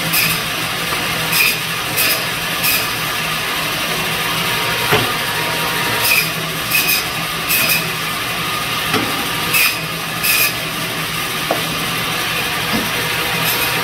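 Biro Model 55 meat band saw running with a steady hum, with short sharp bursts every second or so, in groups, as the blade cuts through bone-in pork loin into thick chops.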